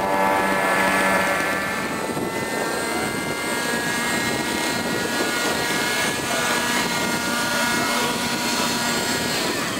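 Radio-controlled scale Bell helicopter hovering low, its engine and rotors running with a steady high-pitched drone.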